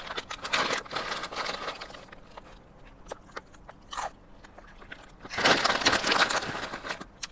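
Close-miked chewing and crunching of salad and corn chips. About five seconds in, a snack-chip bag crinkles loudly for a second or so as a hand reaches into it.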